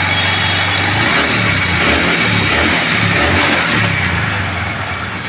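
A Honda Dream Yuga's single-cylinder four-stroke engine running steadily, freshly rebuilt with a new piston, connecting rod and crank bearings, the crank knock gone. It fades a little near the end.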